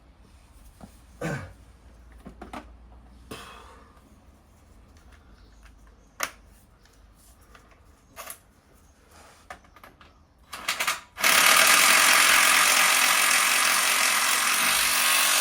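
A few scattered knocks and clanks of metal parts, then a power tool runs with a steady rattle for about four and a half seconds, driving in a bolt as the gearbox is bolted back to the engine.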